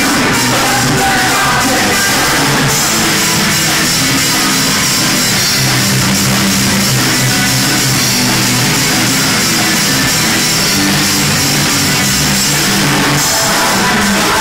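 Punk rock band playing live: electric guitars and a drum kit with crashing cymbals, loud and steady.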